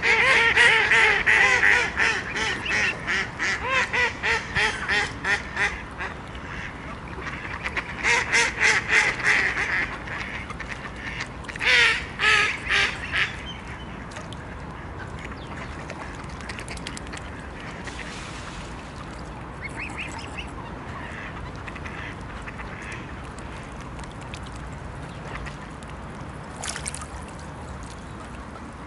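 Waterfowl giving rapid runs of short repeated calls, about three or four a second, in three bouts over the first dozen seconds, then only a few soft calls.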